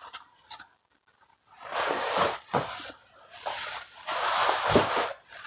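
Rustling and scraping of vinyl record sleeves being gathered and handled, in several noisy bursts after a short quiet start, with a few small clicks.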